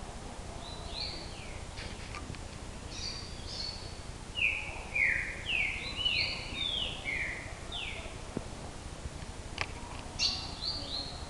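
A songbird singing in phrases of quick, down-slurred whistled notes, a run of several notes in a row in the middle and a shorter phrase near the end, over steady background noise.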